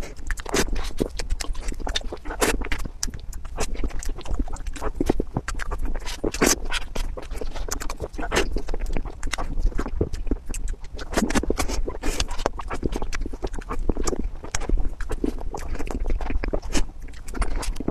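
Close-miked wet mouth sounds of eating soft cream mousse cake: lip smacking and sticky chewing, with many quick irregular clicks.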